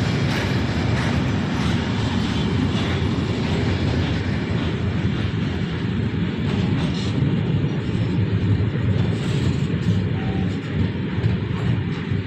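A train passing on the tracks, a steady heavy rolling rumble with faint repeated wheel clicks over the rail joints in the first few seconds.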